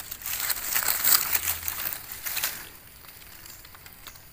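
Dry leaf litter and twigs on the forest floor rustling and crackling under hands at work, a dense run of small crackles for the first two and a half seconds that is loudest about a second in, then quieter.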